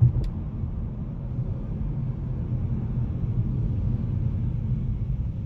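Steady low rumble of road and engine noise heard inside the cabin of a 2018 Mercedes CLA 250, with its 2-litre turbocharged four-cylinder, as the car slows and the automatic gearbox drops through the gears. A short thump sounds right at the start.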